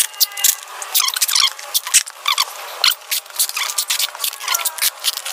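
Plastic bubble wrap crinkling and crackling under handling, with packing tape pulled from a hand tape dispenser in short squeaky screeches.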